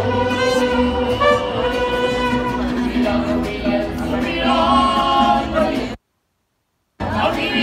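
Mariachi band playing live, violins and guitars with a trumpet, under singing. The music breaks off into silence for about a second near the end, then comes back.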